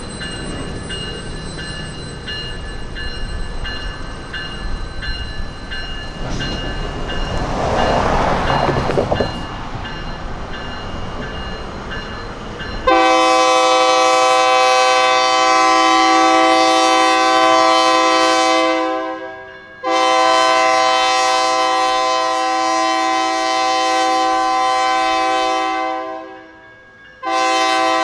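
Electronic grade-crossing bells (GS Type 1 E-Bells) ringing fast and steady, with a rumble that swells and fades partway through. About halfway in, a locomotive horn sounds the crossing signal: two long blasts of about six seconds each, then a third blast starting near the end.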